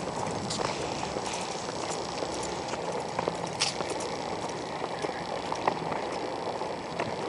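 Scattered footsteps and knocks from handling a hand-held camera while walking, over a steady outdoor hiss.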